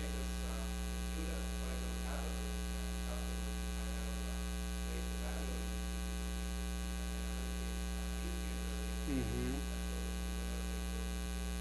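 Steady electrical mains hum throughout, with a faint, distant voice now and then, most clearly about nine seconds in.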